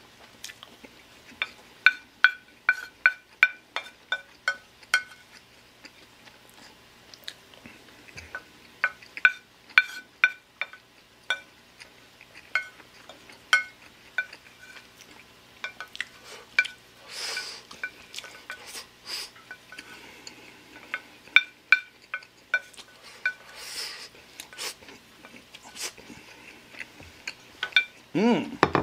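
Wooden spoon clinking and scraping against a ceramic plate while scooping up fried rice: many quick taps, each with a short ring from the plate, coming in irregular clusters, with a few longer scrapes.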